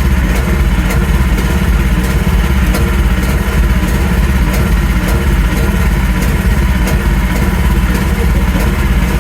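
Engine running steadily at constant speed, loud and close, with a faint regular ticking over the steady sound.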